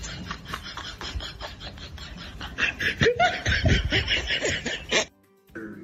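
A person laughing in rapid bursts, getting much louder about halfway through, then cut off suddenly near the end.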